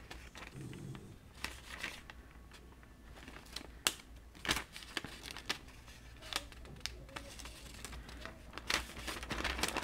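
Light paper crinkling and rustling with scattered small clicks as a folded paper tab is handled and pressed onto the edge of a thin Bible page.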